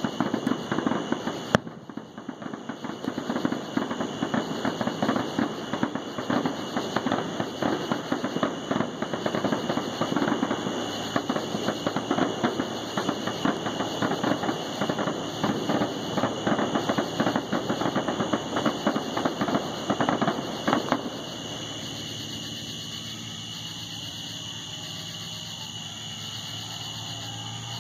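Distant fireworks going off in a rapid barrage, many overlapping booms and crackles with a sharp crack about a second and a half in, stopping abruptly about 21 seconds in. A steady high-pitched tone runs throughout, and a faint low hum is left after the barrage ends.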